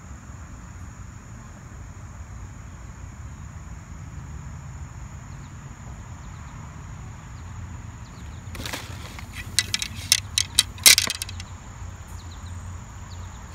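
A steady high-pitched insect trill over a low rumble. About two-thirds of the way in comes a quick run of sharp clicks and clatters: the golf net's metal and fiberglass poles knocking together as they are handled.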